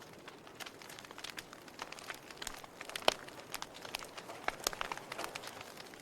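Wood fire crackling in a fireplace: irregular snaps and pops over a soft hiss, with one sharper pop about halfway through.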